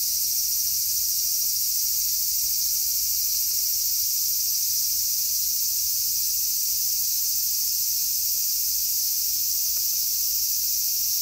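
Steady, high-pitched chorus of insects shrilling without a break.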